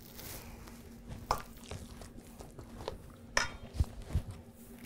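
Scattered light clinks and knocks of kitchen utensils against a bowl as the tuna and potato mix is handled, about half a dozen separate knocks over a faint steady hum.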